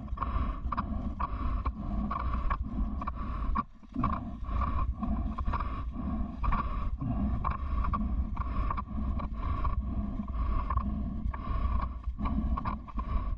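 River water splashing and sloshing close to the microphone as someone moves through a shallow river current, in repeated strokes about twice a second. It drops out briefly about four seconds in.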